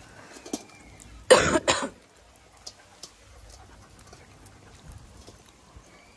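A loud double cough about a second in, then faint scattered clicks and ticks of Malinois puppies eating from a steel bowl.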